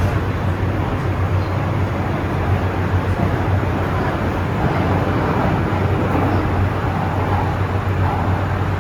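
MTR M-Train electric multiple unit running between stations: a steady rumble of train noise with a constant low hum.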